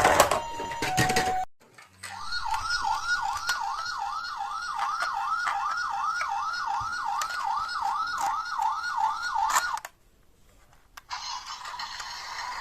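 Toy emergency vehicle's electronic siren sounding a fast yelp, rising and falling about three times a second for roughly eight seconds before cutting off suddenly.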